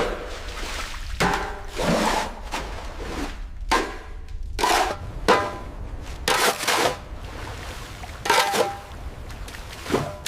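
A series of sudden clanks and knocks, about ten over the stretch, some ringing briefly, over a low rumble.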